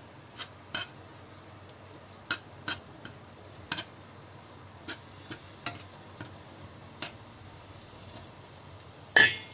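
Metal slotted masher working minced meat in a stainless steel frying pan: scattered light clinks and taps of metal on the pan, then a louder clatter near the end.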